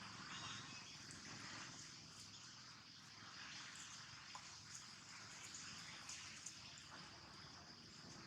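Near silence: faint background noise with a steady high hiss and a few faint scattered ticks.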